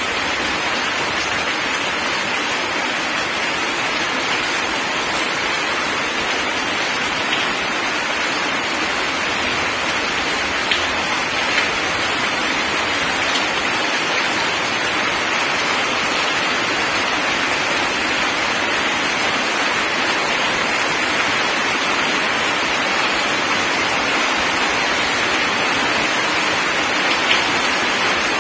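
Heavy rain falling steadily on gravel and puddled ground: a dense, even hiss, with a few sharper drop ticks here and there.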